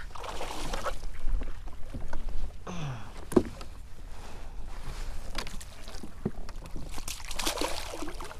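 Water splashing and sloshing against the side of a kayak in bursts, the last and loudest as a landing net is dipped into the water near the end. A single sharp knock about three and a half seconds in.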